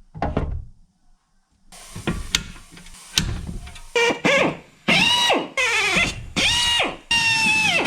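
A few knocks and a rough grinding noise, then a cordless drill run in about five short bursts, its motor speeding up and winding down each time.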